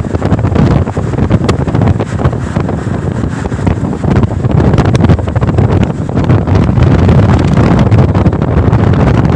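Heavy wind buffeting the phone's microphone as it rides in a moving vehicle, over the vehicle's low road rumble.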